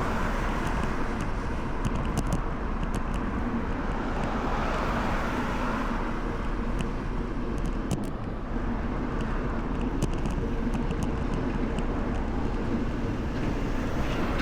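Steady outdoor road noise: motor traffic going by, with a deep rumble underneath and a swell a few seconds in.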